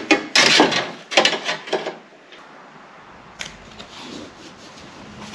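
Hand work on a car part: two spells of rubbing and scraping in the first two seconds as the part is worked into place, then quieter, with a single sharp click about three and a half seconds in.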